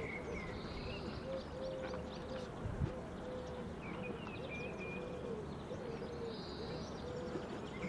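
Birds chirping and trilling over a low, wavering hum that breaks off and returns every second or so.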